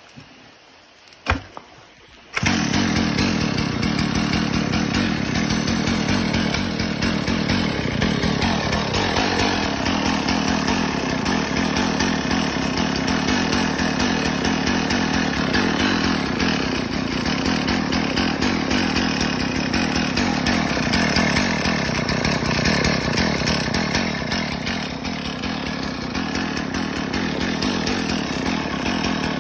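A 1991 Husqvarna 2101 XP chainsaw's two-stroke engine: a sharp knock about a second in, then the engine catches about two seconds in and runs steadily with a rapid firing pulse. It settles a little lower in the last few seconds.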